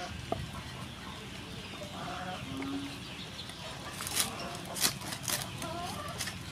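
Cleaver cutting through fried crispy pork skin on a wooden board, giving three or four sharp crunching cracks from about four seconds in. Chickens cluck now and then in the background.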